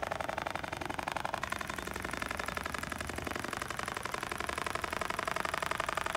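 Dematron DM-1280 computer-controlled industrial sewing machine, with servo direct-drive motors, stitching steadily through a padded upholstery panel: a rapid, even chatter of needle strokes with no pauses.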